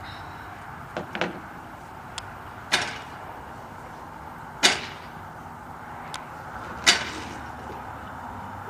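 A backyard spinning seesaw being worked by hand gives a series of sharp clacks and knocks, about six in all. The loudest two come about halfway through and near the end.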